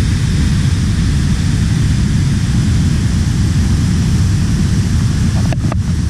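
Waterfall pouring into a rock pool, a loud steady roar that is heaviest in the low rumble.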